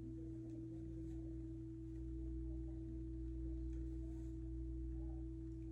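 Steady background hum with one constant mid-pitched tone held throughout, and a few faint soft ticks.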